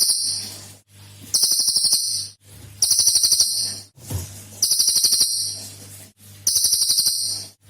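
Cililin songbird repeating its rapid 'tembakan' song: a high-pitched burst of fast rattling notes about a second long, given again roughly every second and a half, five times.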